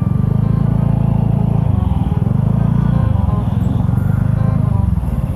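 Motorcycle engine running steadily under way, a low note with fast, even pulsing that eases slightly twice.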